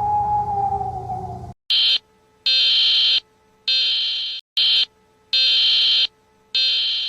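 Emergency alert alarm: a steady electronic tone cuts off about a second and a half in, then a high-pitched electronic beep sounds in a repeating short-long-long pattern.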